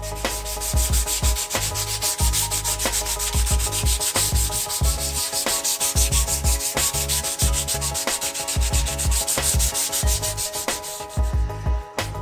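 Sanding during knife finishing: an even, scratchy hiss that stops about a second before the end, over background music.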